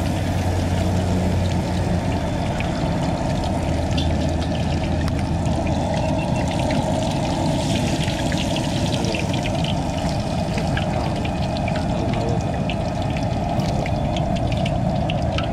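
Fish deep-frying in a large pot of hot oil: steady sizzling with many small crackles.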